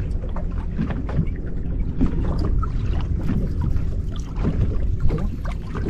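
Small waves lapping and slapping against the hull of a bass boat in short, irregular splashes, over a steady low rumble.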